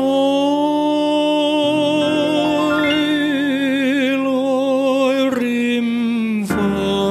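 A male vocalist holds a long sung note with vibrato over electric piano chords. About five seconds in he steps down to a lower note, then lower again near the end.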